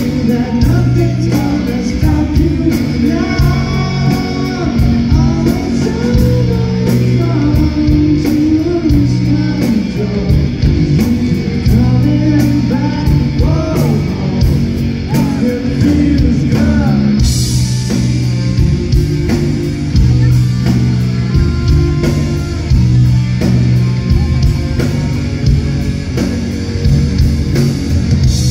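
Live rock band playing through a concert PA, heard from the crowd: electric guitars, bass and drum kit, with a lead vocal over the first half. A loud cymbal crash comes just past the middle, and the band plays on.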